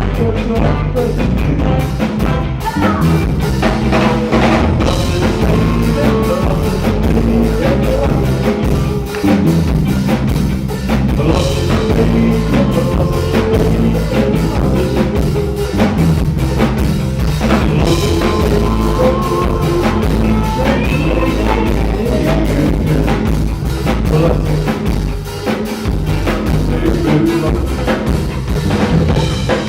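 Live ska band playing, with drum kit and bass carrying a steady beat.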